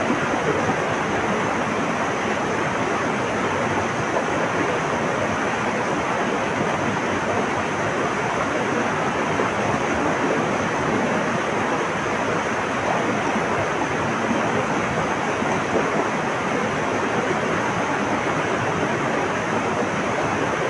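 Flowing water rushing steadily, an even wash of sound with no breaks or changes.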